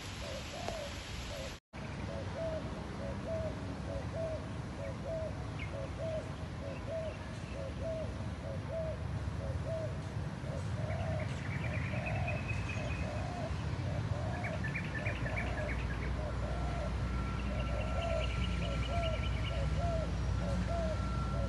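Spotted doves (terkukur) cooing, a short low note repeated steadily throughout, with other small birds chirping more faintly in the second half.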